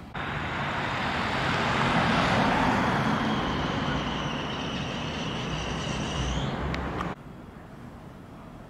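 A motor vehicle driving past: a rush of road noise with a low engine hum and a high whine that rises slightly. The sound swells to its loudest two to three seconds in and cuts off suddenly about seven seconds in.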